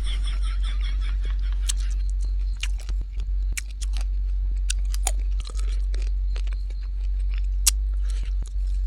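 Close-up eating sounds: chewing and crunching, with many scattered sharp mouth clicks over a steady low hum.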